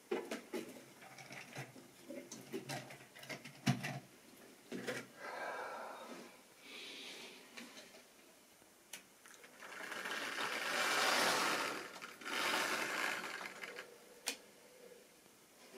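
Model railway locomotive running on sectional track: its small electric motor whirrs and its wheels clatter on the rails, growing loudest as it comes close, about ten to fourteen seconds in. This is preceded by a run of sharp clicks and knocks in the first four seconds.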